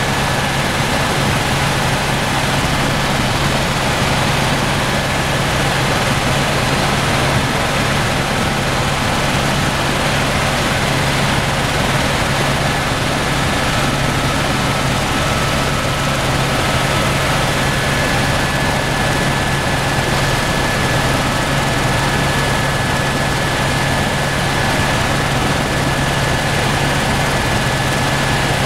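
Helicopter engine and rotor noise heard from inside the cabin in flight: a steady, loud drone with a thin high whine over it.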